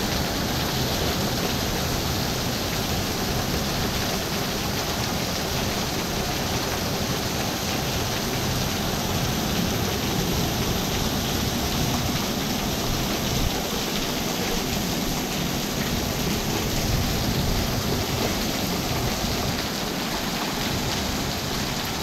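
Heavy rain pouring steadily onto a concrete patio and shrubs, with a constant low rumble underneath.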